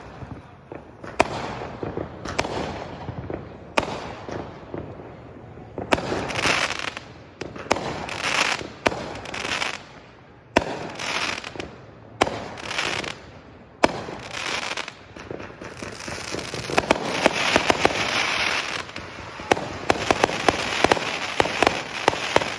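Fireworks going off: repeated sharp bangs, several followed by a burst of crackling, then a long stretch of rapid crackling and popping in the second half.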